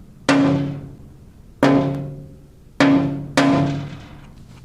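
Small body hammer tapping a bare, epoxy-primed car body panel four times, each tap leaving the sheet metal ringing with a clear tone that dies away over about a second. The ringing is the panel still without any sound deadener.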